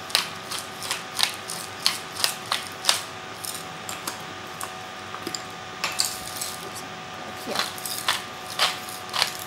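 Pepper or salt mill being twisted over a pan, giving irregular sharp clicks, several a second in bursts, over a faint steady hum.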